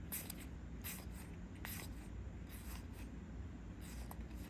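Trading cards being slid and flipped through by hand: about six short swishes, spread out, over a low steady hum.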